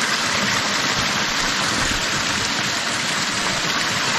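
Small mountain stream running over stones, a steady rush of water.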